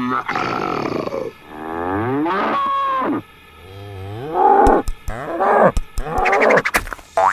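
Cow mooing about five times, long moos that bend up and down in pitch, with a few sharp clicks in the second half.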